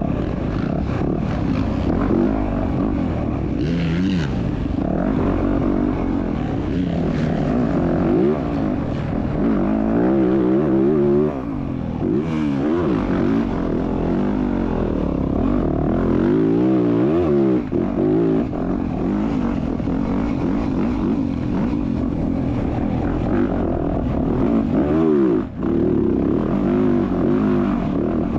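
Motocross bike engine running hard under the rider, its pitch rising and falling over and over as it revs up and drops back between sections of track.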